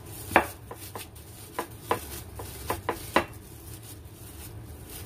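A plastic-wrapped ulekan pestle pounding steamed potato chunks in a glass bowl to mash them: about eight irregular knocks over the first three seconds, the first the loudest.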